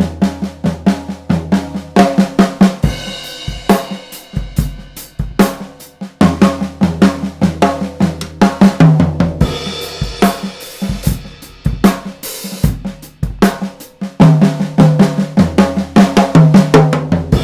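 Drum kit played in a steady fast stream of strokes: Swiss Army triplets (flam, tap, tap) moved around the snare and toms in a sixteenth-note feel, with the second tap accented, bass drum underneath and cymbals ringing in at times.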